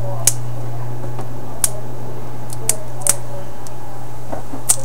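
A handful of sharp little clicks and ticks, about five, spread irregularly, as parts of the tablet and its protective plastic film are handled. A steady low electrical hum sits under them throughout.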